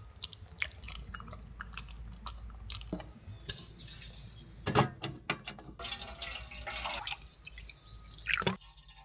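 Water poured from a plastic bottle into a stainless steel cup, splashing, in the second half; before it, short clicks and rustles of handling.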